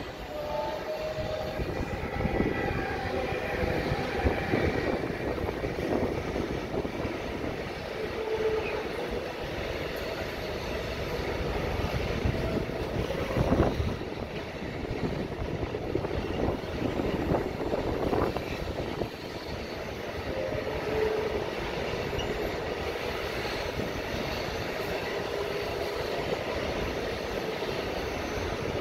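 Container freight train hauled by a Siemens Vectron class 193 electric locomotive passing close by: the locomotive goes past, then a long string of container wagons rolls by with a steady rumble and clatter of wheels on the rails and an occasional sharp knock.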